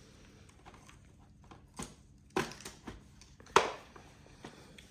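Handling a typewriter-style wireless keyboard: a few separate sharp plastic clicks and taps as it is turned over and its keys pressed, the loudest about three and a half seconds in.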